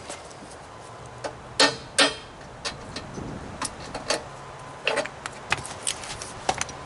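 Irregular metal knocks and clinks as parts of an air compressor are pried and beaten loose with hand tools, with two sharp strikes about a second and a half to two seconds in, then a run of lighter taps.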